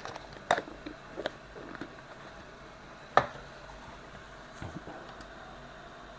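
Scattered light clicks and taps of small tools and objects being handled at a repair bench, the sharpest about three seconds in, over a faint steady hum.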